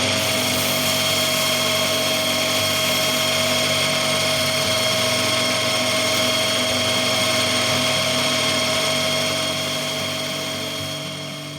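Metal lathe running with a steady, multi-toned whine while taking a final light finishing pass on a drive shaft to bring it down about 0.01 mm for a slide fit. The sound fades away near the end.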